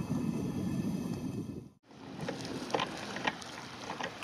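Wind rumbling on the microphone beside choppy water, cut off briefly about two seconds in. After the break the wind is lighter, with a few short slaps of small waves lapping.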